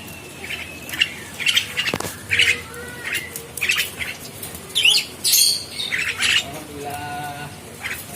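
Javan myna giving a string of short, harsh squawks mixed with brief whistled chirps; the loudest, harshest call comes a little after halfway.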